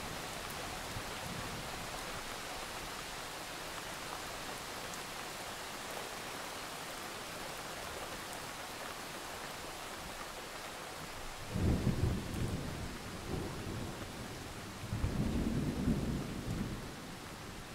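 Thunderstorm recording: steady rain, with two low rolls of thunder, one about two-thirds of the way in and another near the end.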